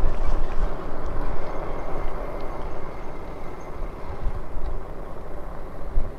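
Wind buffeting the microphone of a camera on a moving e-bike: a rough, uneven rumble that swells and eases.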